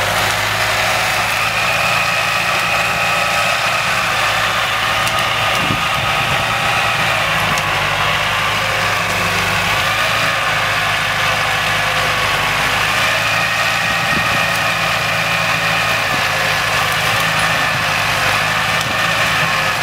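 Engine of a mechanical sugarcane loader (a 'crab') running steadily while its grab arm loads cane onto a truck, its pitch wavering slightly.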